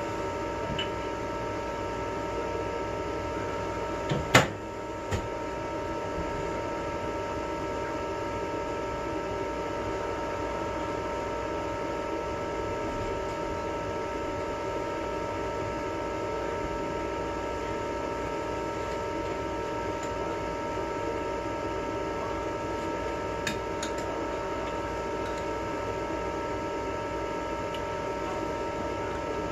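EGO 56-volt battery charger running with a steady fan whir and a whining hum while it charges a battery. There is one sharp click about four seconds in.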